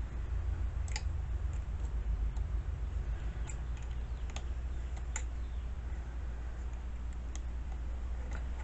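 Scattered small clicks and taps of chainsaw parts being handled and fitted during reassembly of the air filter area, about six sharp clicks spread over several seconds, over a steady low rumble.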